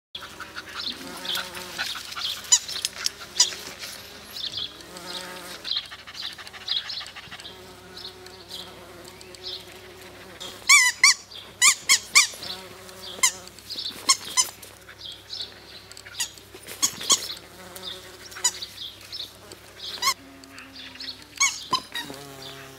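A bumblebee buzzing as it flies from flower to flower, its hum shifting in pitch and breaking off now and then. Over it come frequent short, high squeaky chirps, loudest in a quick cluster about eleven seconds in.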